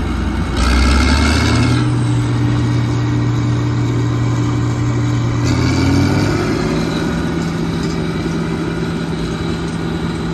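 John Deere 9650STS combine running under load while threshing soybeans: a steady diesel drone with the rush of the threshing machinery, its note stepping up about a second in and again about six seconds in.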